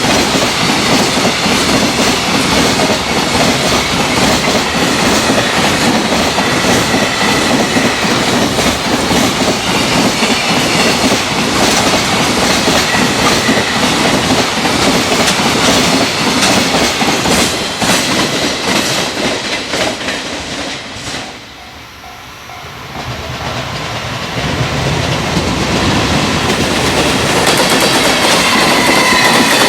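Freight train passing at speed, its wheels clattering over the rail joints in a fast run of clicks. The noise dies away briefly about 21 seconds in, then builds up again toward the end as train noise returns.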